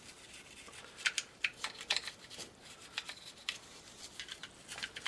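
Toothbrush scrubbing the small parts of a Glock 19 pistol: irregular, scratchy brushing strokes.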